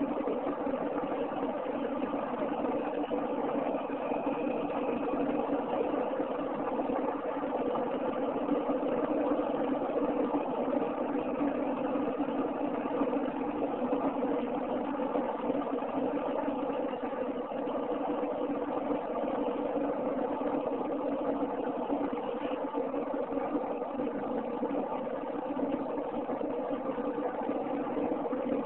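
Steady engine and road noise heard inside a car cruising at highway speed, an even hum that does not change.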